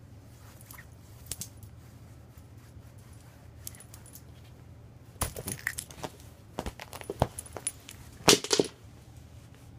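A spiked pet collar jangling and clicking as a Bengal cat bats at it and wrestles with it. A few light clicks come first, then a busy run of rattles from about halfway in, loudest near the end.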